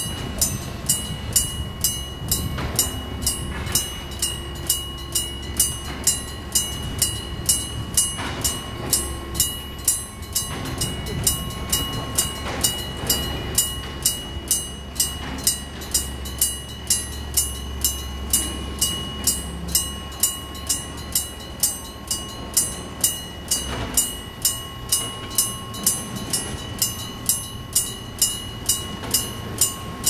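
Japanese level-crossing warning bell ringing in a steady electronic clang, about two strikes a second. A low rumble rises under it from about eight seconds in and dies away near the middle of the second half.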